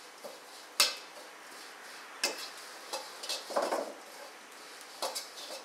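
Metal wok ladle knocking and scraping against a steel wok, stirring chilli flakes that are being dry-fried without oil. There is a sharp clank about a second in and more knocks near two, three and five seconds, with a scraping rustle of the ladle through the flakes in between.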